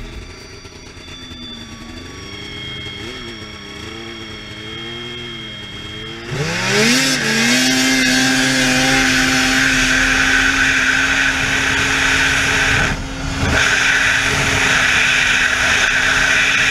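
Snowmobile engine running at low revs with the pitch wavering, then about six seconds in the throttle opens wide: the revs sweep up quickly and hold at a steady high pitch as the sled accelerates, the rpm held level by the clutch. A brief easing off the throttle comes about halfway through the full-power run.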